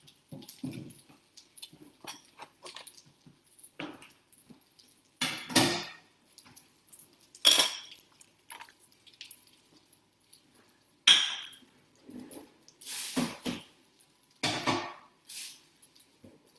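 Kitchen dishes and cutlery being cleared away: a run of small clinks and knocks with several louder clatters spread through.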